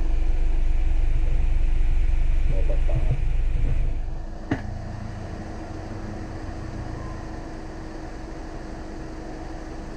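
A deep low rumble that holds for about four seconds and then dies away, followed by a single sharp click, over a steady electrical hum.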